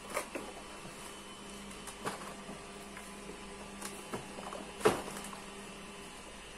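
Scattered clicks and knocks of household things being handled while someone rummages for something, the loudest knock about five seconds in, over a steady electrical hum.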